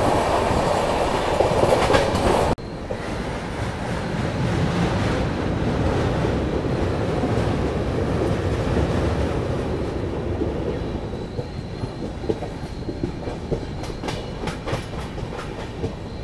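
Humsafar Express coaches running at speed, heard from an open coach doorway: a steady rumble of wheels on rails mixed with rushing air. The noise drops suddenly about two and a half seconds in, and a run of rail-joint clicks comes near the end.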